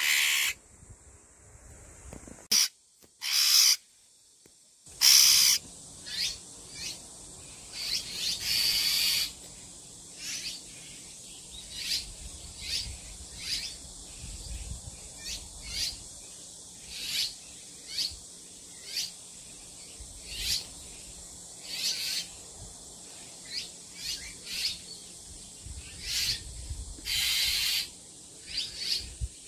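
Bull-headed shrike giving short, harsh calls over and over, about once a second, with a few longer, louder bursts in the first seconds. These are a parent's alarm calls defending its nestlings, which the owners find unlike the shrike's usual call.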